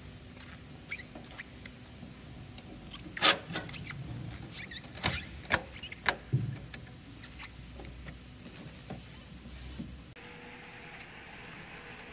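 Sharp clicks and clacks of wires and a cable being handled and fitted into an electrical terminal block, several in quick succession a few seconds in. Near the end a steady hum takes over.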